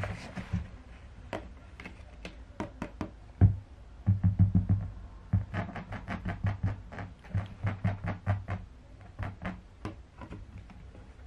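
Background music with a low pulsing beat, over a string of light plastic clicks and taps from a cat flap being pushed and swinging in its frame.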